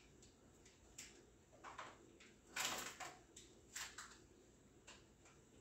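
Tin cans and jars set down and shifted on kitchen cabinet shelves: a handful of light, short knocks and clatters spread over several seconds, the loudest about two and a half seconds in.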